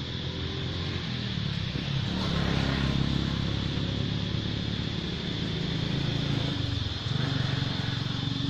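A motor vehicle engine running, its steady hum swelling about two seconds in and again about seven seconds in, over a steady high-pitched drone.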